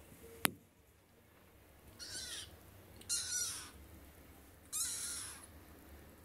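Young kitten meowing three times, short high-pitched cries that fall in pitch at the end. A single sharp click comes about half a second in.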